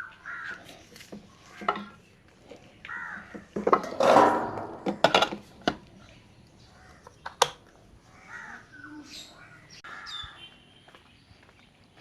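Crows cawing several times, the loudest call about four seconds in, amid scattered sharp clicks and knocks.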